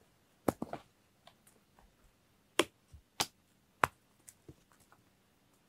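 A series of short, sharp clicks or snaps, irregularly spaced: a small cluster about half a second in, then three louder single clicks about two-thirds of a second apart, and a couple of faint ones after.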